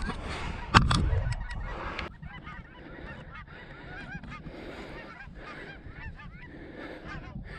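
A flock of geese calling overhead: many overlapping short honks and yelps. For the first two seconds there is heavy breathing right on the microphone, with a loud close knock about a second in.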